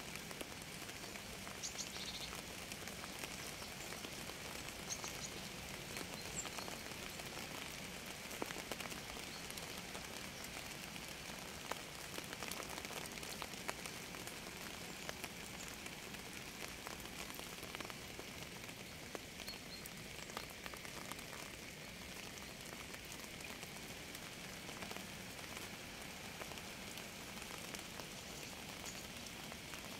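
Steady rain falling, with many individual drops ticking close by. A few short, faint high chirps come now and then.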